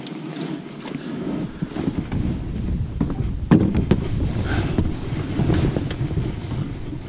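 Wind buffeting the microphone in an uneven low rumble, with a few knocks on the boat's deck, the loudest about three and a half seconds in.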